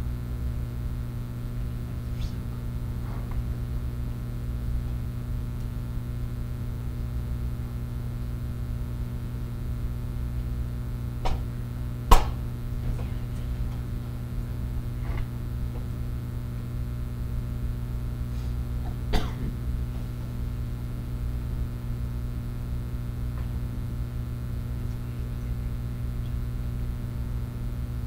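Steady low hum of a classroom, broken by a few short sounds: a sharp knock about twelve seconds in, the loudest, and coughing from the audience around it and again about nineteen seconds in.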